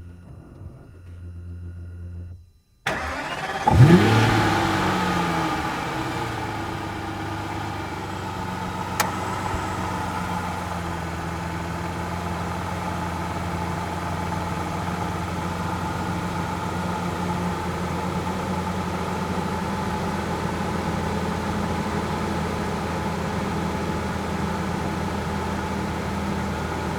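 Aston Martin engine starting up. It fires with a sharp, loud rev flare about four seconds in, which falls away over a few seconds into a steady idle. Before the start there is a fainter steady engine hum, cut off briefly.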